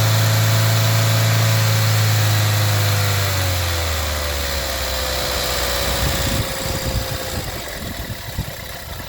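1.4 TSI CAXA four-cylinder petrol engine idling with timing-chain clicking. About three seconds in, its speed sinks, and from about six seconds on it runs rough and uneven. The rough idle and clicking are signs of a broken timing chain guide and a chain that has skipped teeth.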